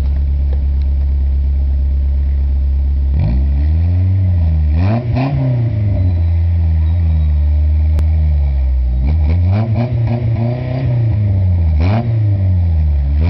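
Exhaust of a VW Golf 3 1.8 four-cylinder petrol engine fitted with an RM Motors sports exhaust section in place of the stock one. It idles for about three seconds, then is revved up and let fall back several times, with bigger rises around four to five seconds in and again near the end.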